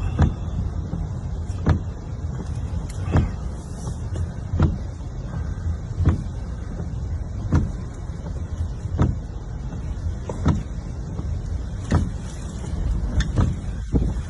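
Inside a moving car: a steady low rumble of engine and road, with windshield wipers knocking at the end of each sweep about every one and a half seconds.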